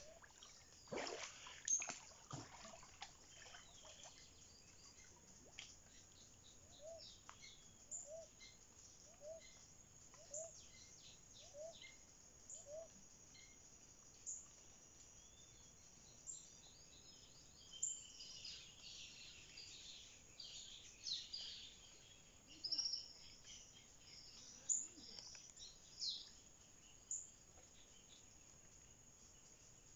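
Faint birds calling in quiet outdoor ambience: scattered high chirps, a run of about seven short low notes evenly spaced, and a denser patch of chirping about two-thirds through. A couple of brief louder sounds come near the start.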